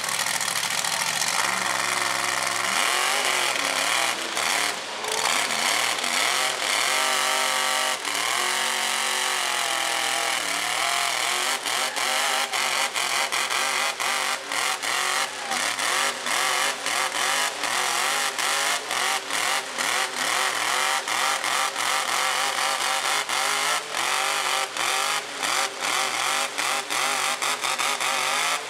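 Engines of two lifted mega mud trucks at full throttle, straining against each other in a chained tug-of-war pull. The revs climb about three seconds in, then waver up and down as the trucks fight for grip, with frequent sharp crackles throughout.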